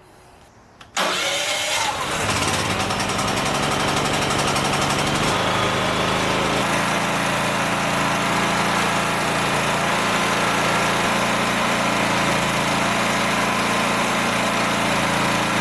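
Predator 8750 inverter generator's engine starting about a second in. Its pitch shifts for a few seconds, then it settles into steady running.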